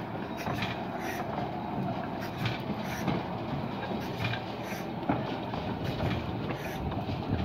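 Bagnall steam locomotive 'Sybil', not in steam and being pushed slowly along the track, with its newly fitted coupling and connecting rods and cylinder pistons working as the wheels turn: a low rolling rumble with repeated knocks and clicks, about two a second.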